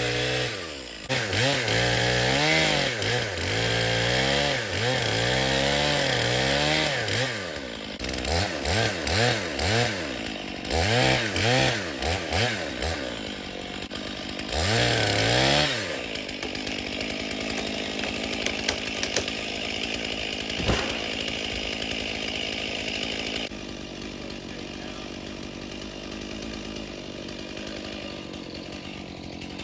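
Stihl two-stroke chainsaw revving up and down over and over for about the first sixteen seconds, then settling to a steady idle that drops a little quieter later on. One sharp click comes about two-thirds of the way through.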